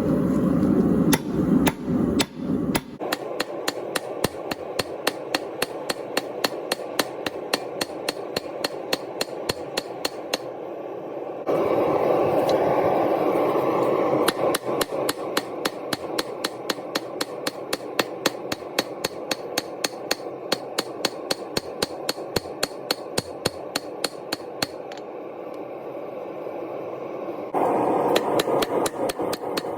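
Hand hammer striking hot Damascus steel on an anvil in rapid, even blows, roughly three a second, forging the dagger billet. A steady rushing noise runs underneath and grows louder twice. The hammering pauses briefly near the end.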